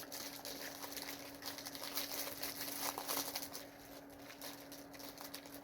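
Faint, irregular rustling and crinkling of Pop-Tart packaging being handled, over a steady low hum.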